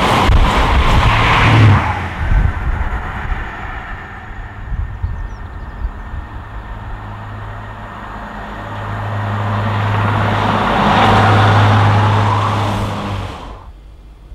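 An express train's coaches rushing past close by, dying away about two seconds in. Then a Class 142 Pacer diesel multiple unit approaches and passes with a steady low engine hum and rushing wheel noise, growing to its loudest near the end before cutting off suddenly.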